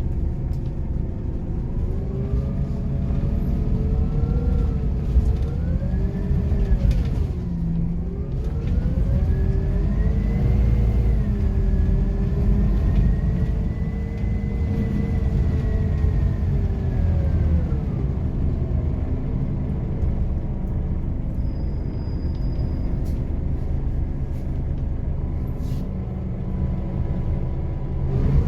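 Scania K270UB bus's five-cylinder diesel engine heard from on board, pulling away and through the gears over a heavy low rumble. Its pitch climbs, drops sharply at a gear change about a quarter of the way in, climbs again and holds, then falls away past the middle and runs lower. A few brief rattles and clicks occur.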